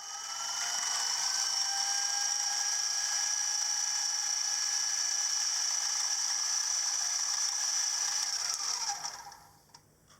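Small milling machine spindle motor spinning up with a rising whine, running steadily at speed, then winding down and stopping about nine seconds in.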